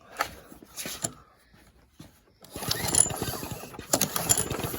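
Old four-stroke petrol lawn mower engine being cranked over with its spark plug out, starting about two and a half seconds in as a fast, even chatter that does not catch. The engine is not firing because there is no spark at the plug. Two short knocks of handling come first.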